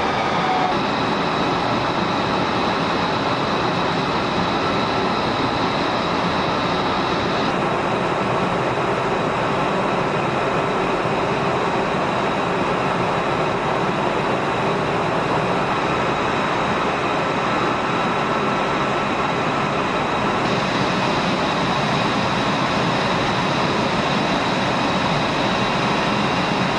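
Steady jet-engine noise: a continuous roar with a high, even turbine whine. Its tone changes abruptly a few times.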